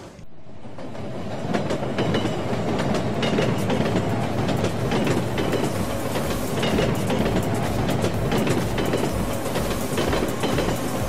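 Train passing: a steady rumbling run with wheels clattering over rail joints in an even rhythm, building up over the first second or two.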